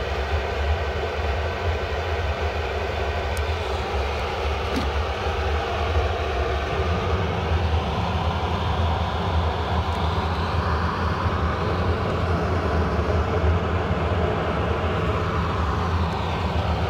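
Pellet burner firing in a boiler: a steady rushing noise of the flame and its blower fan, with a deep rumble underneath.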